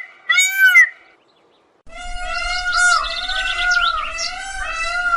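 Indian peafowl giving one short, arched, honking call about half a second in, the last of a repeated series. After a brief silence, a chorus of birds starts about two seconds in: wavering whistled notes with many quick chirps over a low rumble.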